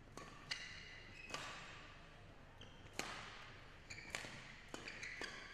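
Badminton rally: rackets striking the shuttlecock in sharp cracks, several about a second apart, with short squeaks of shoes on the court floor.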